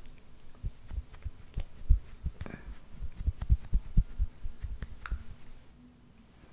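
A makeup brush and fingertips tapping and brushing right at the microphone: irregular soft low thumps, several a second, dying away near the end.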